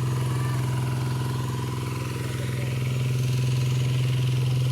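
Small engine running steadily at one constant speed with an even hum, most likely the engine of a water pump draining the pool.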